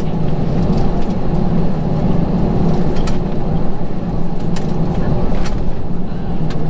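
Steady low rumble of airliner cabin noise inside an Airbus A321, with a few short rattling clicks scattered through it.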